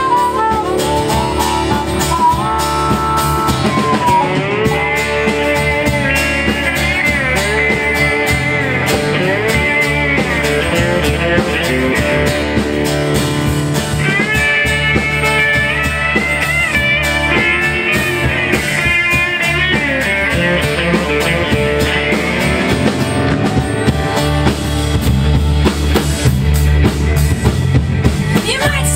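Live blues band in an instrumental break: harmonica and a Telecaster-style electric guitar playing lead lines with bending notes over strummed acoustic guitar and a steady drum beat.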